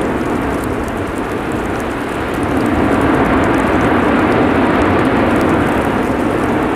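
Lava fountain jetting from the erupting Cumbre Vieja vent on La Palma: a loud, continuous rushing roar of gas and lava with a deep rumble underneath. It eases slightly about a second or two in and swells again near three seconds.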